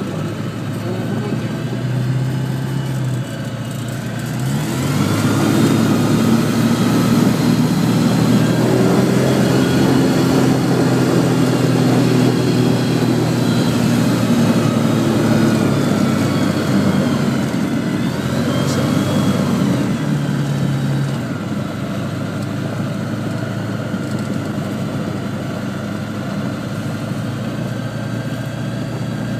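Zenair 601 light aircraft's engine and propeller heard from inside the cockpit while it rolls on the ground. The engine note rises about four or five seconds in, holds, and drops back to a lower steady run around twenty seconds in.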